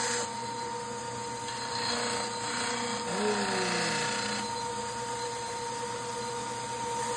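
Wet model trimmer's motor and grinding wheel running with a steady hum; the louder grinding noise drops away just after the start as the stone model comes off the wheel, returning briefly a couple of times before the machine runs on alone.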